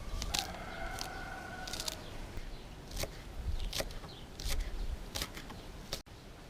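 Wood fire crackling: sharp pops spread through, about one a second. About half a second in, a faint held tone with several pitches sounds for about a second and a half.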